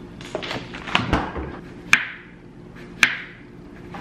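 A kitchen knife cutting through a cucumber onto a cutting board: about five sharp knocks at uneven intervals, the loudest about two and three seconds in.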